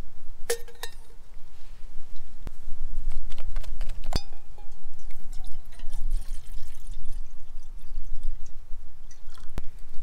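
Aluminium Trangia cook-set pots clinking and ringing as they are taken apart and set down, once near the start and again about four seconds in. Then water is poured from a canteen into an aluminium pot, over a steady low wind rumble.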